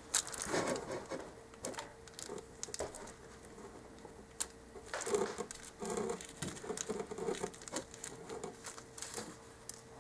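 Scattered light clicks, taps and rustles of small tools and metal grommets being handled for tape-wire connections, over a faint steady hum.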